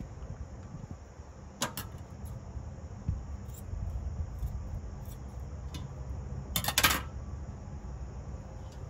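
Kitchen scissors snipping raw bacon slices and the plastic bacon package being handled. There is a brief sharp click about two seconds in and a louder cluster of clicks and crinkles near seven seconds, over a steady low outdoor rumble.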